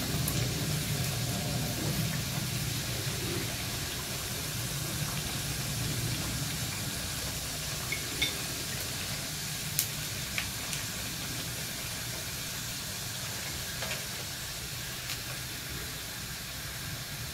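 Breaded chicken patties deep-frying in hot oil in a pan, a steady sizzle as they finish cooking. From about eight seconds in come a few light clicks of the metal spatula against the pan as the fried patties are lifted out.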